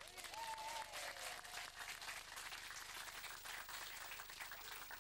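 A small audience clapping, with a brief voice calling out near the start.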